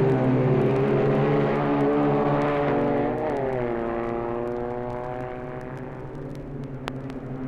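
Racing engine sound effect from a 1960s vinyl record. The engine note falls in pitch about three seconds in and fades, then starts to build again near the end. Record-surface clicks run throughout, with one sharper pop near the end.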